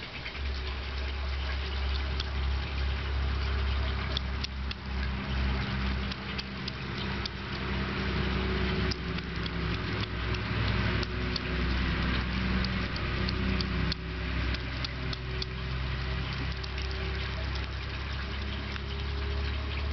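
Young hedgehog eating wet food from a saucer, with many quick small chewing and smacking clicks, over a steady low engine-like hum.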